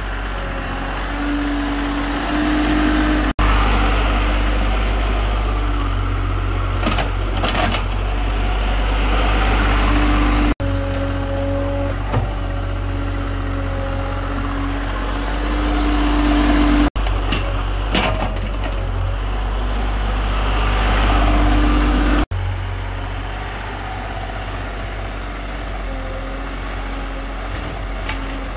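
IHI IS-30GX mini excavator's diesel engine running steadily while digging, with a higher whine that swells and falls several times as the arm and bucket work, and a few short clatters. The sound drops out briefly four times.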